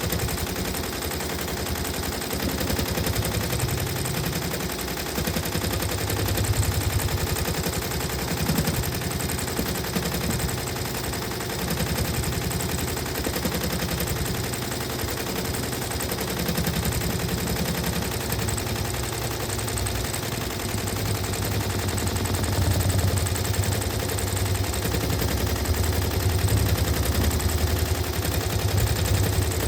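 Sewing machine stitching steadily at speed: a rapid, even clatter of needle strokes over the hum of its motor.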